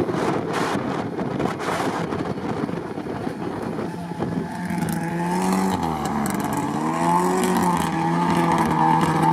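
Lada Niva's engine revving as it drives through swamp water and mud, its pitch rising and falling and growing louder in the second half. Wind noise on the microphone in the first few seconds.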